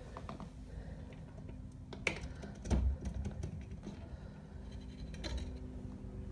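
Plastic pet carrier's wire grille door being unlatched and swung open: scattered clicks and rattles of the metal door and latch, with a sharp click about two seconds in and a dull thump just under three seconds in. A faint steady hum runs underneath.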